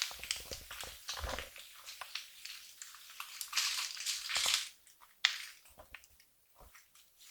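Close rustling and crinkling with scattered small clicks, loudest about halfway through, then a single sharp click and quieter, broken rustles near the end.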